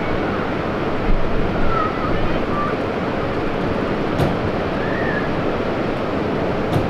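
Steady wind noise buffeting the microphone, with faint distant voices calling now and then and two short sharp knocks, the second near the end.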